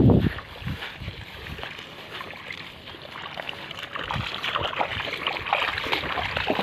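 Footsteps on a wet, muddy path beside a rice paddy, with splashing. A few loud thumping steps right at the start, then quieter, steady walking.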